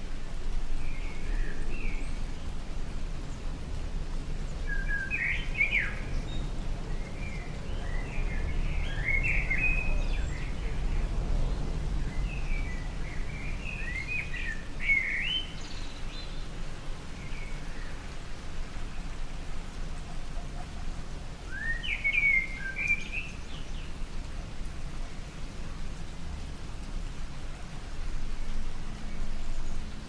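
Light rain falling steadily, with a songbird giving bursts of short chirping calls several times over it, then falling quiet for a few seconds past the middle.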